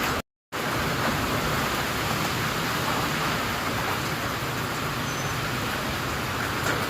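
Heavy typhoon rain and wind, a steady rushing noise, cut off for a split second just after the start.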